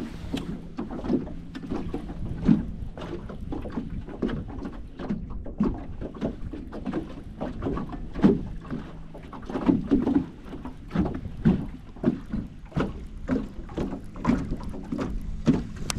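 Water slapping irregularly against the hull of a small fishing boat, a steady run of short knocks and splashes, with a faint steady hum through the first half.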